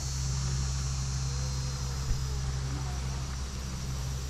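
Steady outdoor background: a constant low hum under an even high buzz, likely summer insects, with a few faint chirps.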